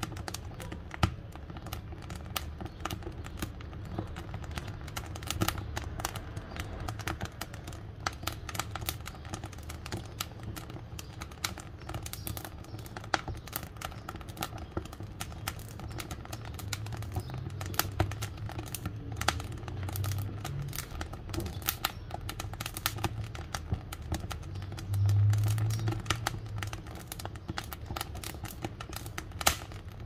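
Wood fire crackling in the firebox of a brick wood-burning cook stove: a dense, irregular run of small pops from the burning boards over a low steady rumble. A few pops stand out sharper, and the low rumble briefly swells louder near the end.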